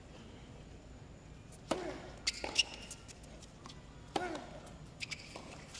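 Tennis ball struck with rackets on a hard court: a serve a little under two seconds in, then a return and further sharp hits and bounces of the rally.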